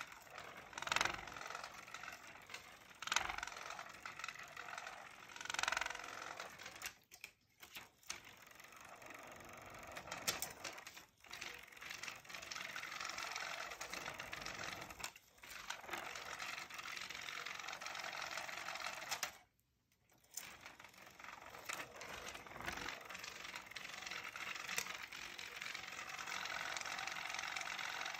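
Small electric motor of a rotating butterfly cat toy running, with a busy clicking rattle as the butterfly on its wire whirls around, and louder clattering bursts in the first few seconds. It drops out briefly about twenty seconds in.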